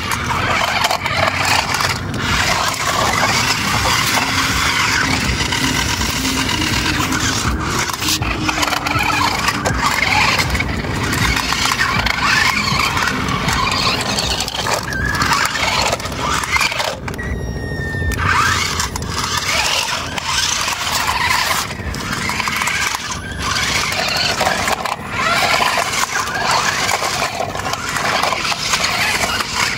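Toy remote-control cars driving on a dirt path: their small electric motors and gearboxes running with a steady whine, and tyres scrabbling over the grit, with a short break about seventeen seconds in.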